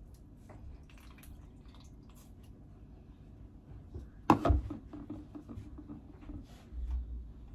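Kitchenware being handled: faint drips and small clicks, then one sharp knock of an item set down on the counter about four seconds in, ringing briefly, and a low dull thump near the end.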